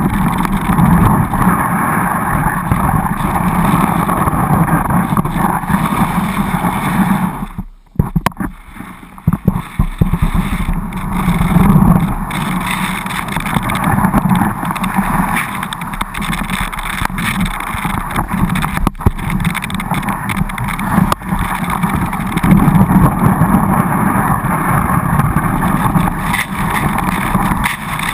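Skis sliding and carving through snow, heard through a GoPro mounted low on the ski with wind buffeting its microphone: a loud, steady rushing rumble that drops away for about a second around eight seconds in, then picks up again.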